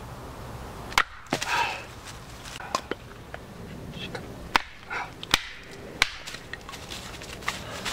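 Several sharp knocks or snaps at irregular intervals, about six in all, with brief rustling between them.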